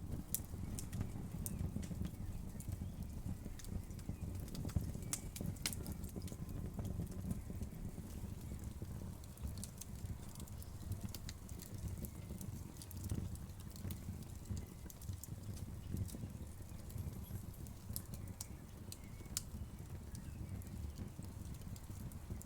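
Wood fire burning in a fireplace: a steady low rumble of the flames with scattered, irregular sharp crackles and pops from the burning wood.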